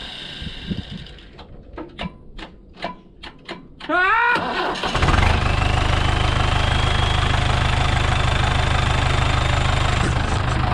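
Hydrema 912 dump truck's starter clicking in a quick series of clicks, then the diesel engine catches about four seconds in, revs up and settles into a steady idle. The clicking is still there with a brand-new starter fitted, so the old starter was not the fault.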